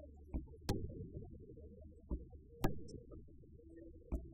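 Aerial firework shells bursting: two loud sharp bangs about two seconds apart and several fainter pops, over a low rumble.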